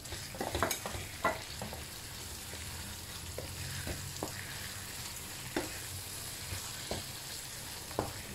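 Ground meat and tomato purée sizzling steadily in a frying pan while a wooden spoon stirs them. There is a cluster of scrapes and knocks against the pan in the first second and a half, then a single knock every second or so.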